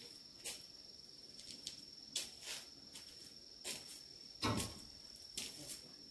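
A steady, thin, high-pitched insect trill, with scattered soft clicks and knocks. The loudest is a thump about four and a half seconds in.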